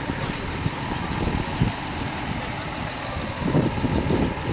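Truck-mounted crane's diesel engine idling, with wind buffeting the microphone in gusts, strongest about three and a half seconds in.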